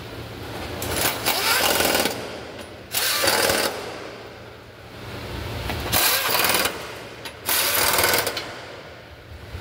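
Pneumatic impact wrench running in four short bursts, driving bolts home while the Mitsubishi Pajero's V5A5A automatic transmission is bolted into place.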